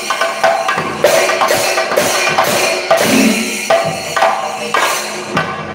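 Kerala chenda drum ensemble playing: many cylindrical chenda drums beaten with sticks in a fast, dense, steady rhythm.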